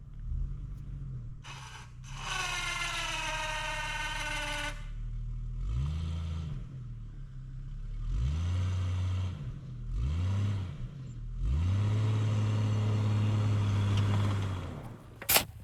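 Old Jeep Cherokee's engine revving up and falling back several times while it works a snow plow blade, ending in a longer steady pull. A separate whine lasts a couple of seconds early on.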